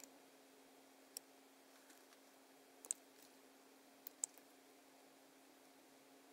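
A handful of sharp clicks from a computer mouse and keyboard, including a Command-key shortcut: one about a second in, a close pair near three seconds, and two more just after four seconds. Under them runs a faint steady hum, otherwise near silence.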